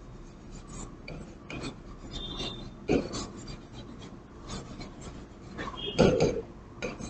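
A pen scratching across a writing board in many short strokes as words are handwritten, with two louder strokes about three and six seconds in.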